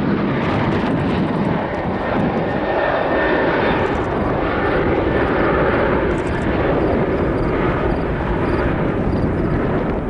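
Airliner engines at high power close by, a loud steady rush of engine noise that holds its level throughout.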